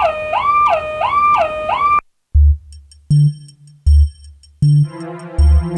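An electronic siren wailing up and down about once every 0.7 s, cutting off suddenly about two seconds in. Then electronic music starts, with a synthesizer and a heavy drum-machine beat.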